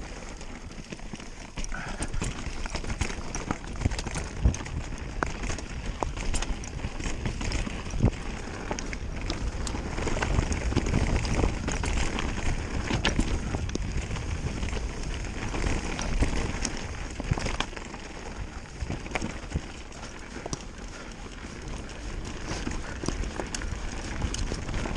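Specialized Turbo Levo e-mountain bike rolling down a rocky, leaf-strewn trail: tyres crunching over stones and dry leaves, with frequent clatters and knocks from the bike over the bumps.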